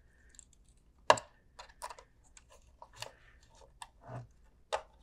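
Small irregular clicks and taps of wire ends and a small screwdriver being worked at the screw terminals of a Resideo plug-in transformer, with the sharpest click about a second in.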